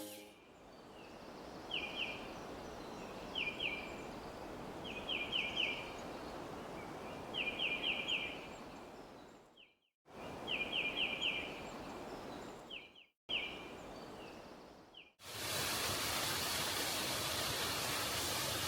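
Steady rush of a brook, with a bird calling in short runs of two to five quick, high notes. After about fifteen seconds the rushing water is louder and the bird calls stop.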